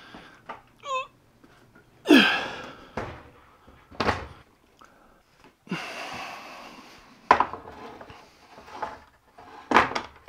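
Knocks and clunks of a portable jobsite table saw and an Incra Miter Express sled being set down on a table-saw top and fitted together: about six sharp clunks, the loudest about two seconds in, with a short scraping slide in the middle and a brief squeak about a second in.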